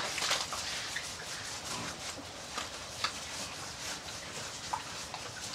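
Water splashing on a wet concrete floor as hands scrub the wet skin of slaughtered pigs: a steady hiss with scattered small splashes and taps.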